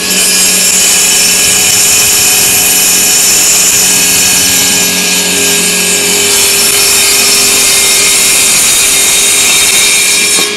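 Akaido 18-volt brushless cordless circular saw with a 125 mm blade, cutting through a wooden board. The motor and blade make a loud, steady whine throughout the cut.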